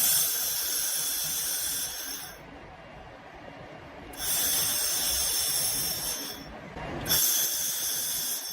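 Handheld fiber laser welding machine firing three times, each burst a hiss lasting about two seconds with quieter gaps between.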